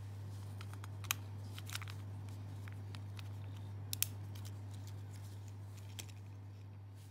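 Sharp plastic clicks from handling a Honda smart key fob, the loudest a quick double click about four seconds in as the metal emergency key blade is pushed in and latches. A steady low hum sits underneath.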